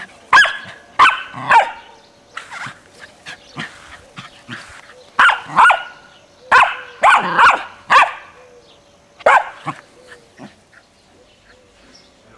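A young puli barking: three sharp barks, a pause of a few seconds, then a run of about seven more.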